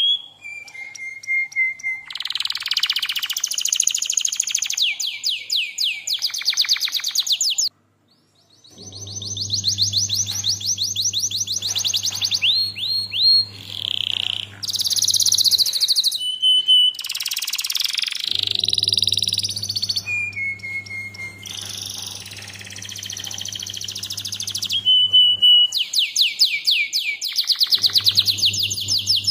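Domestic canary singing: fast trills and rolls of rapidly repeated notes, with short held whistles between them. A steady low hum comes and goes underneath.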